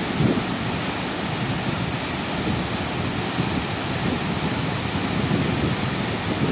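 Steady rushing of a 72-metre waterfall, the Chute de la Druise, plunging into its pool.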